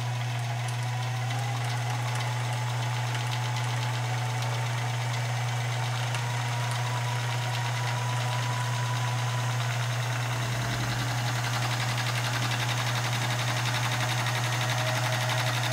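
Union Special 39200 AE industrial overlock sewing machine running steadily while stitching an overlock edge on fabric: a strong steady low motor hum under a fast, fine clatter of the needle and loopers.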